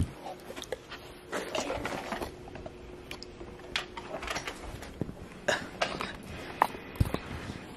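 Handling noise from a phone and its charger being picked up and fumbled with: scattered light clicks, taps and rustling, with a sharper knock about seven seconds in, over a faint steady hum.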